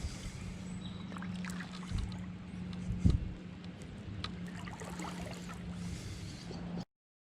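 Water trickling and dripping around a small fishing boat, over a steady low hum, with a couple of knocks about two and three seconds in. The sound cuts off suddenly near the end.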